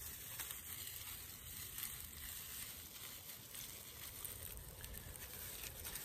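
Dry pine needles crackling and rustling faintly as they are twisted and worked by hand into a tinder bundle.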